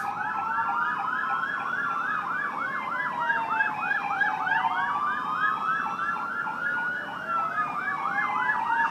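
Several fire truck sirens sounding together: one in a fast yelp, about four sweeps a second, while others wail slowly up and down over a few seconds each.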